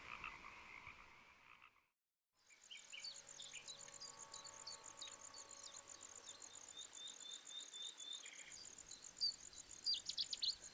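A chorus of frogs croaking, fading out over the first two seconds. After a brief silence, a steady high insect trill comes in with small birds chirping, the chirps louder and quicker near the end.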